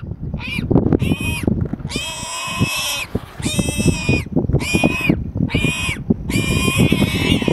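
A baby warthog squealing over and over in distress while caught by young lions: about seven shrill, drawn-out squeals, the longest about a second, over a constant low rumbling noise.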